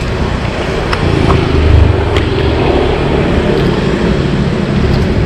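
Street traffic noise: a dense low rumble of passing vehicle engines that swells about two seconds in, with a few light clicks.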